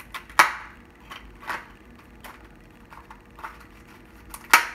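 Kitchen knife stabbing through the plastic film over a microwave meal tray to vent it: a series of sharp pokes and crinkles, the loudest just after the start and near the end.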